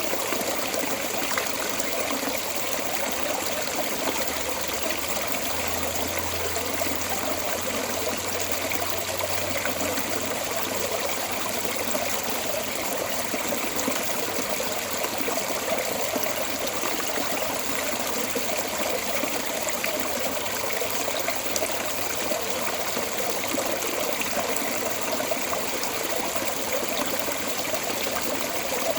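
Water flowing steadily out of a storm drain, an even rushing and trickling.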